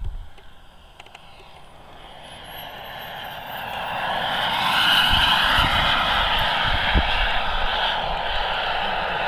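Boomerang Sprint radio-controlled model jet's turbine engine running as the plane makes a low pass: a whine that swells over the first few seconds, is loudest about halfway through, then holds.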